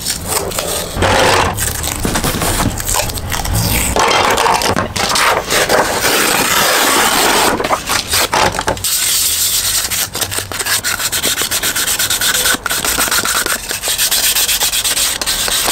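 Sandpaper lightly scuffing the hard plastic parts of a Nerf Rival blaster by hand: continuous quick rubbing strokes, close up. The sanding turns thinner and higher-pitched about halfway through. This is the light scuff that gives the primer something to grip.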